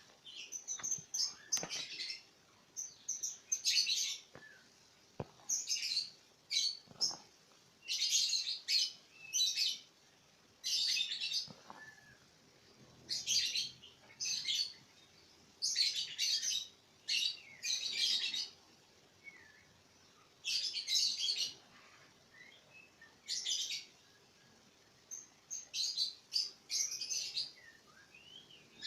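Murai birds chirping in short bursts of high calls, one burst every second or two.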